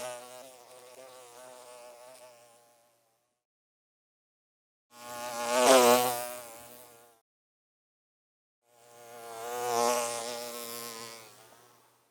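A bee in flight buzzing past three times: a buzz that fades away early on, then two passes that each swell up and fade out, with silence between them. The buzz wavers in pitch and rises a little as each pass is loudest.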